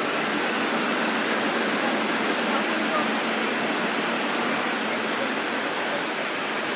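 Lionel model train running on the layout's track, a steady even rushing noise.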